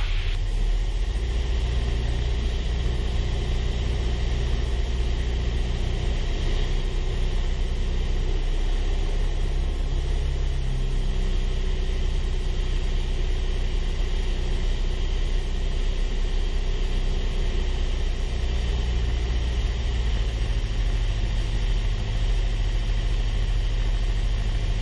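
Steady drone of a Piper PA-28-161 Warrior's Lycoming O-320 four-cylinder engine and propeller heard inside the cabin, throttled back for the approach, with a rushing hiss of airflow over it.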